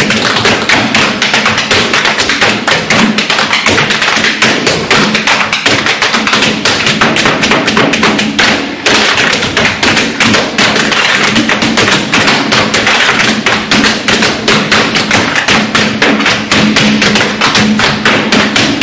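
Tap shoes of three dancers striking a stage floor in fast, dense rhythmic patterns, with a brief break about nine seconds in.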